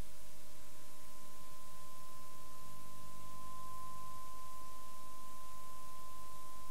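A steady pure tone of about 1,000 Hz from a signal generator played through a loudspeaker, faint at first and growing louder about halfway through as the volume is turned up. It is a hearing-threshold test tone, raised until the listeners can just hear it.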